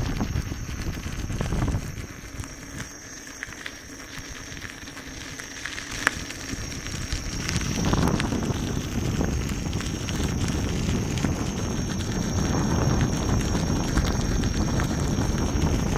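Wind buffeting the microphone over the rolling noise of a Gotway MSuper3 electric unicycle's tyre on a gravel path. The rumble dies down about two seconds in and rises again around eight seconds in, with a single sharp click about six seconds in.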